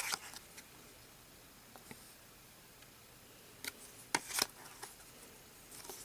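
A few short clicks and taps of cardboard trading cards being handled and flipped, one at the start and a cluster about four seconds in.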